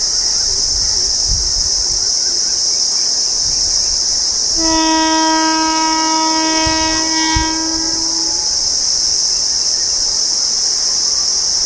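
Electric locomotive horn, from the WAP-4 heading the express, sounding one long steady blast of about three and a half seconds starting about four and a half seconds in. Under it runs a steady high hiss of insects.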